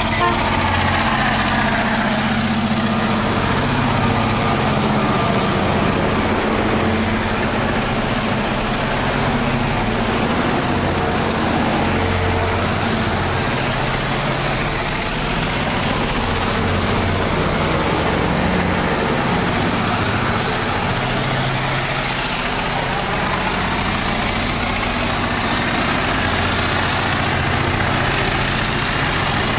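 Several diesel freight locomotives running together, their engines working hard as they pass close by, a steady deep engine drone with broad mechanical and rolling noise over it.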